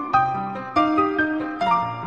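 Background piano music: a melody of single struck notes, several a second, each fading after it is played.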